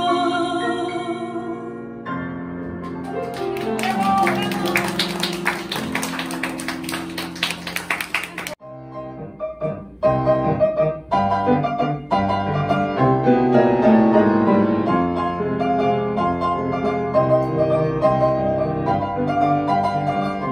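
A woman's voice holds the song's last note with vibrato over piano, then piano chords close the song. After a brief break, a solo piano starts the introduction of the next song.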